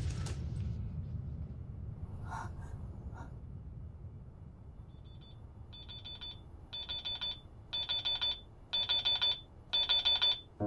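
Digital alarm clock beeping in short high-pitched bursts about once a second. It starts faint about halfway through and grows louder, with a low steady room hum beneath.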